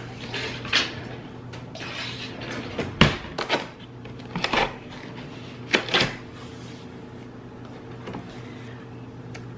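A knife cutting through packing tape on a cardboard box and the cardboard flaps being handled and pulled open: rustling and scraping with several sharp knocks of cardboard.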